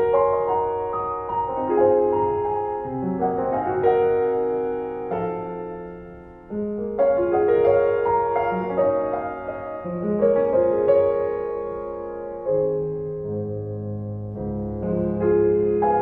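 Background piano music, a slow tune of held notes and chords.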